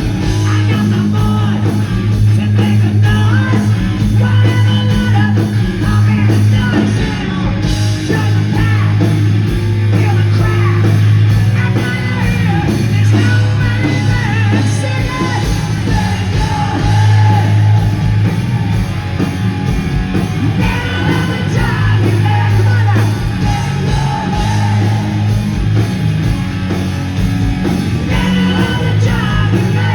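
Hard rock music with a sung and shouted lead vocal over a heavy, steady bass and electric guitar.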